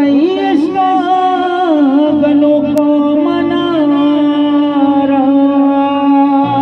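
A man singing a Balochi song, his voice sliding and bending through long ornamented phrases over a steady held drone note. A low accompaniment comes in about two seconds in.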